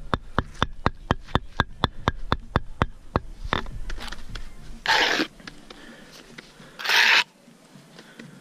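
A rapid, very even series of sharp knocks, about four a second, stopping about three and a half seconds in, followed by two short, loud hissing bursts about two seconds apart.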